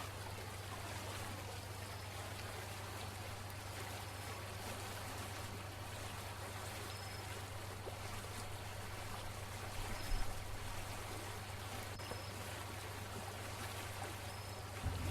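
Faint steady hiss over a low steady hum, with a short low bump about ten seconds in.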